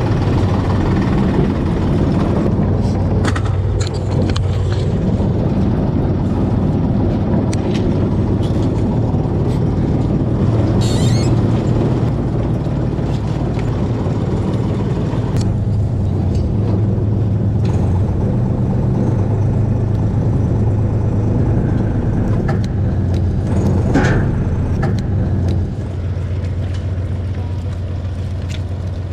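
River ferry's engine running steadily with a low hum, a few brief clicks and a short hiss over it; its level drops slightly near the end.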